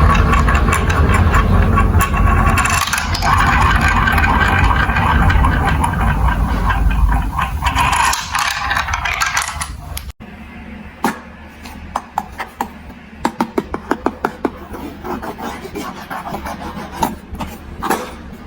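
Marbles rolling and rattling down a plastic building-block marble run, a loud continuous rumble. It cuts off abruptly about ten seconds in, giving way to quieter, separate clicks and clacks of marbles knocking through the track.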